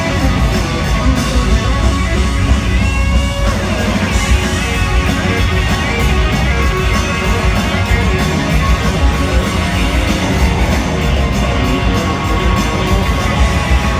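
Electric guitar solo on a Gibson Firebird over a full live rock band with drums and bass; about three seconds in, a held high note wavers with vibrato.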